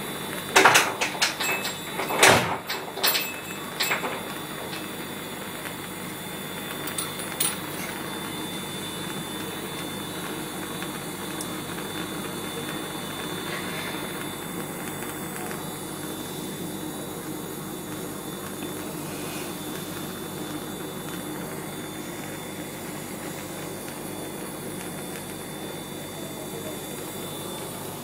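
Gas stove burner running steadily under a pan of heating oil, making an even rushing noise. A few sharp knocks and clatters come in the first four seconds, and one more at about seven and a half seconds.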